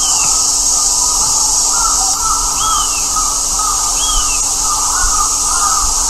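Crows cawing repeatedly over a steady high hiss, with a thinner, higher rising-and-falling call three times.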